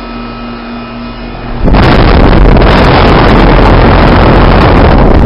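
A 2008 Goodman heat pump's outdoor unit runs with a steady hum. About a second and a half in, a loud rush of air noise blasts the microphone, clipping, and cuts off suddenly near the end.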